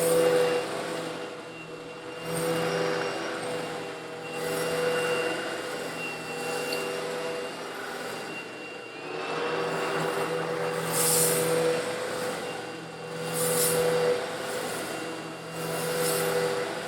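Old Eureka vacuum cleaner running, its motor holding a steady hum while the suction noise swells and falls every couple of seconds; coarse stone granules slightly larger than sand rattle up the hose, with two short bright hissing bursts in the second half.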